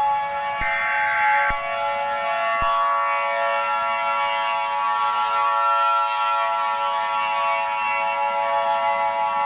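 Emergency Alert System alert sounds: a short, harsh digital data burst ends about a second and a half in, over a steady siren-like alarm of several held pitches that shifts slightly a couple of seconds in and then holds unbroken.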